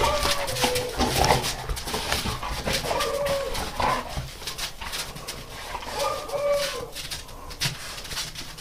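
A dog whining in short, falling whines, about five times, during rough play between two dogs, with scuffling noises between the whines.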